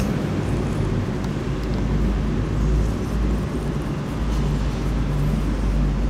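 Older tabby-and-white tomcat purring close up while being stroked on the head: a low, steady rumble that swells and eases in long waves, with a short dip a little past halfway.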